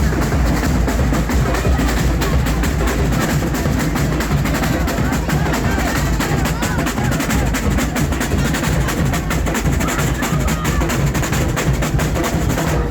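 Loud percussion-driven music: dense, rapid drum and snare hits with knocking woodblock-like strokes over a steady heavy bass.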